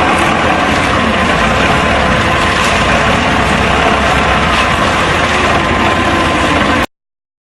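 A diesel engine running steadily and loudly, until the sound cuts off abruptly near the end.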